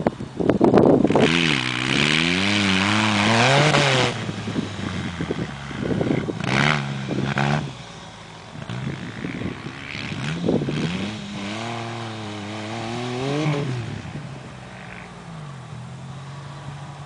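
Off-road buggy engine, an ALP 800, revving up and down again and again as the buggy drives over grass and climbs and descends a bank. Its pitch rises and falls in swells, and it settles to a steadier, lower note near the end.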